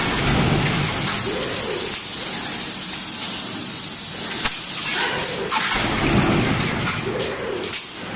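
Steady machinery noise from a stamping press line running a transfer deep-drawing die, with a few sharp clicks about five seconds in and again near the end.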